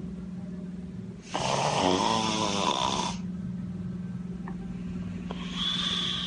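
A sleeping woman snoring very loudly: one long, fluttering snore of about two seconds starting a little over a second in, with the next snore beginning near the end.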